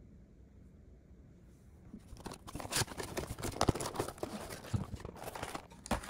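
Clear plastic blister trays crinkling and clicking as they are slid out of cardboard figure boxes, starting about two seconds in.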